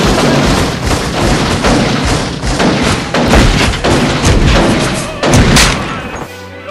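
Loud barrage of gunshot sound effects, the shots running together into a dense rattle that stops abruptly near the end.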